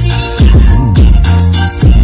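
Loud bass-heavy dance music played through the Idola Sound truck-mounted loudspeaker stack, with sliding bass notes dipping and rising every half second or so over a steady beat.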